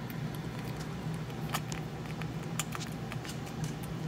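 Gray squirrel chewing a warmed blueberry, a scatter of small wet mouth clicks, over a steady low hum.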